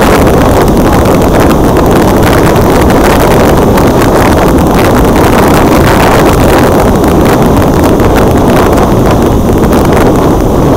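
Loud, steady wind rush buffeting the microphone of a wing-mounted action camera in flight, with the drone of the RC plane's battery-powered electric motor and propeller underneath.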